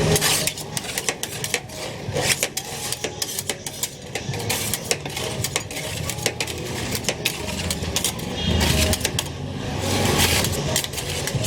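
Metal spatulas chopping and scraping on the frozen steel plate of a rolled-ice-cream stall as Oreo ice cream is mixed, making a fast, irregular clatter of clicks.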